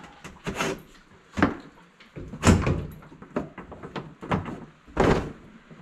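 A door on a UTV's add-on glass cab being swung shut against its frame: three solid thuds, the loudest about two and a half seconds in, with lighter clicks and knocks between.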